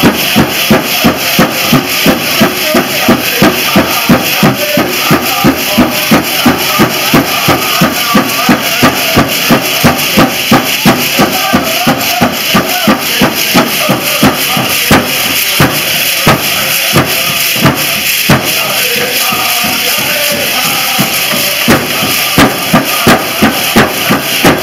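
Powwow drum beaten in a steady pulse of about three strokes a second, with singers over it and the metal cones of jingle dresses rattling as the dancers move. The beat falls quieter and sparser for a few seconds past the middle, then comes back strong near the end.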